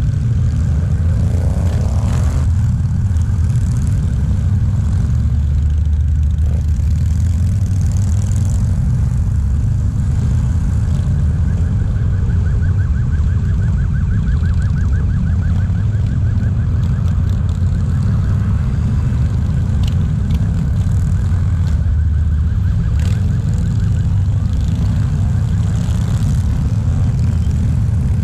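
Many motorcycles riding past in a slow parade: a continuous low rumble of engines, with a rev rising about two seconds in. A fast-warbling high tone sounds for a few seconds midway.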